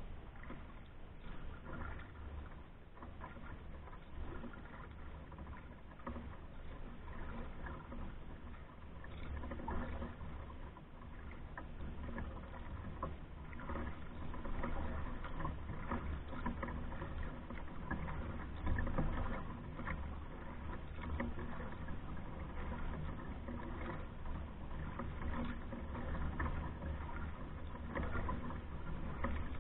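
Paddle strokes in calm water, with dripping and small splashes against a Hornbeck pack canoe's hull. Irregular soft clicks and ticks over a steady low rumble.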